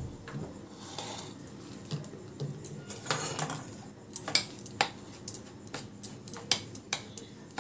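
Spoon clicking and scraping against a serving bowl while milk powder is spread and stirred, with a run of irregular light clicks.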